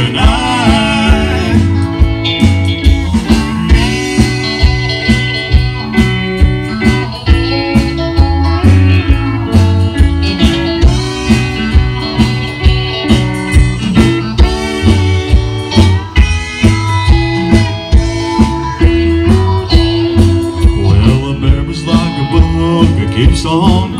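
Country-blues rock band playing an instrumental stretch of the song: guitar over bass and drums with a steady beat.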